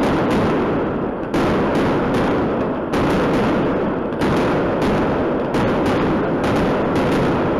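Aerial fireworks shells bursting in a continuous barrage: sharp bangs about every second or so, each followed by a slowly fading rumble, with the next burst coming before the last has died away.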